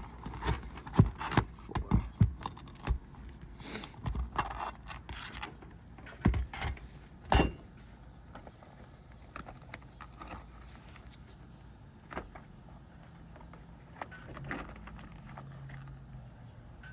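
Steel flat bar working roofing nails out from under asphalt shingles: a string of sharp metallic clicks, knocks and scrapes, thickest in the first few seconds and again around six to seven seconds in, then only scattered light ticks.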